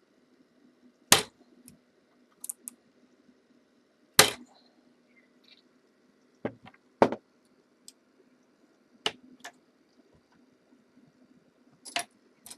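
Dimple bump key being struck in a lock cylinder: sharp metallic taps at irregular gaps of one to three seconds, the strongest about one and four seconds in, with lighter clicks between, as the pins are jolted without the lock yet opening.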